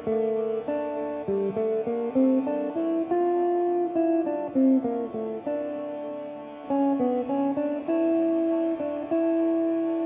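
Slow relaxation music: a melody of single plucked guitar notes, some picked in quick runs and others left to ring for a second or more.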